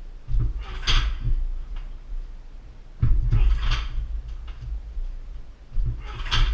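Front kicks thudding into a weighted car tyre on a boxing stand, three times at roughly even spacing, each with a short sharp hiss as the kick lands.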